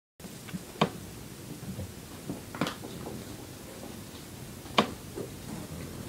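Three sharp knocks or taps about two seconds apart, over a faint steady room hiss.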